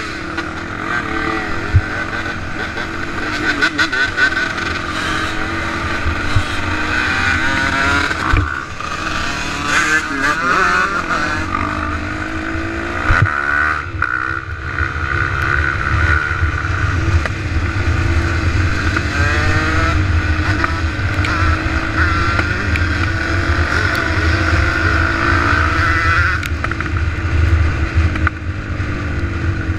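Dirt bike engine running while riding a dirt trail, its revs repeatedly rising and falling as it accelerates and shifts gear, over a low wind rumble on the microphone and a few knocks from the bumpy track.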